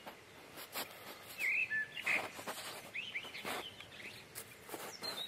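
Footsteps crunching on a patch of old granular snow, irregular steps, with short bird chirps over them, loudest about two seconds in.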